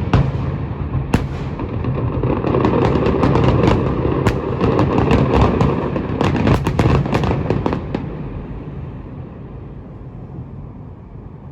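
Fireworks display: a rapid volley of sharp bangs and crackles over a steady low rumble, dense until about eight seconds in, then dying away into a fading rumble.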